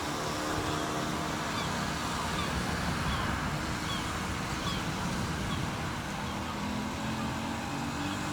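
Heavy rain falling steadily, an even hiss, with some faint low pitched tones and small high chirps over it.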